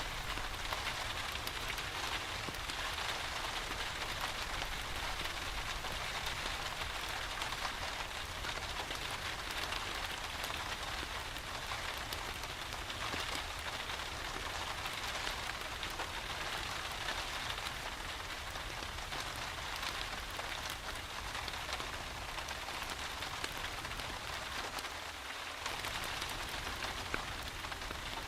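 Steady rain falling, a continuous even patter with no breaks.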